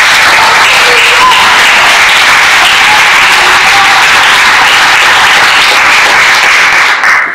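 Audience applauding, loud and dense throughout, stopping abruptly near the end.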